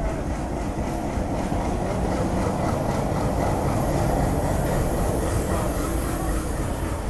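Pakistan Railway passenger train running along the track, heard from on board: a steady noise of wheels and carriages on the rails.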